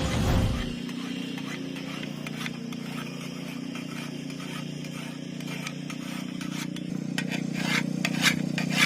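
A steady low hum, then from about seven seconds in a run of quick, repeated scraping strokes that grow stronger, typical of a file being worked on a lawn mower blade to sharpen it.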